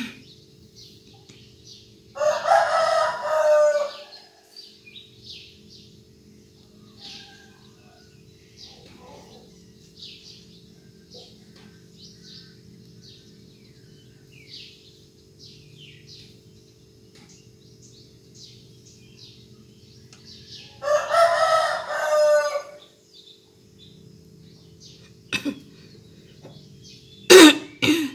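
A rooster crowing twice, each crow just under two seconds long, with small birds chirping throughout. Near the end come a few sharp knocks.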